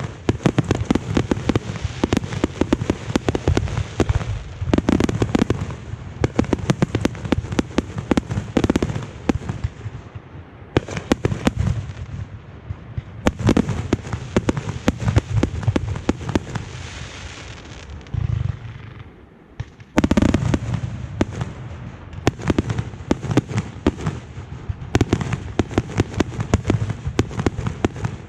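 Fireworks firing in a dense barrage: many sharp bangs and crackling reports each second. The firing thins to a hiss and a brief lull at about eighteen to nineteen seconds in, then comes back at full density at twenty seconds.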